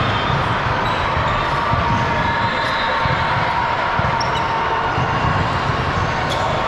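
Basketball game in a gym: a ball bouncing on the hardwood court amid a steady hum of crowd noise, with short high squeaks from players' shoes.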